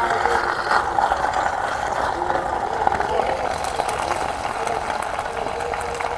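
Pasta in tomato sauce simmering in an electric pot with a steady, fine bubbling sizzle. A silicone spatula stirs through it at the start.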